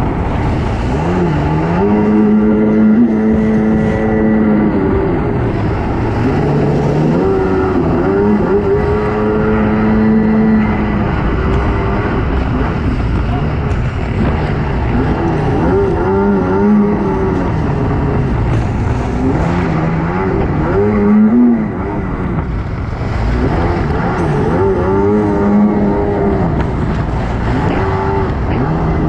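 Stand-up jet ski engine revving up and down repeatedly through fast turns, over a steady rush of water spray.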